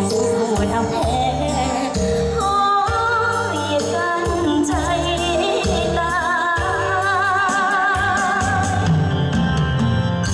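A live song played through a PA: a woman singing, with vibrato on held notes, over a Yamaha PSR-S770 keyboard backing with a steady bass.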